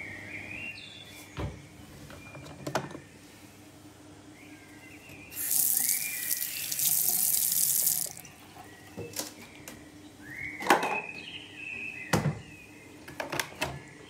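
Bathroom sink faucet turned on, water running into the basin for about three seconds in the middle and then shut off. Scattered knocks and clicks of handling at the sink come before and after.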